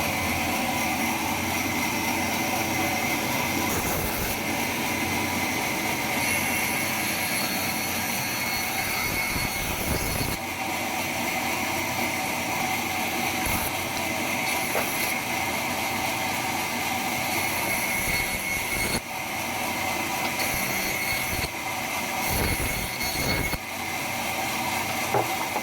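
Sawmill saw running steadily, a dense mechanical noise with a high whine and a few short knocks.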